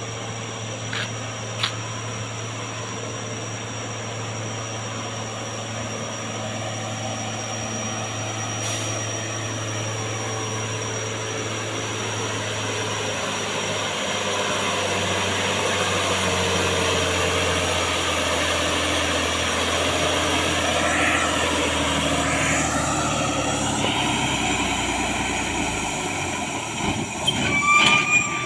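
Heavy truck's diesel engine labouring uphill under the weight of an excavator, its low note sinking steadily as it loses speed because it is too weak for the climb. Near the end the engine note drops away and a high brake squeal sounds.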